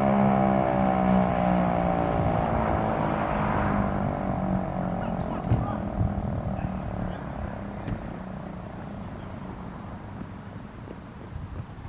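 Federal Signal Eclipse 8 siren winding down after being switched off. Its tone falls steadily in pitch and fades over roughly the first five seconds, with a lower hum lasting to about six seconds before it dies away.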